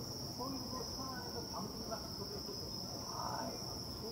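Steady, high-pitched chorus of insects such as crickets, with faint voices in the background.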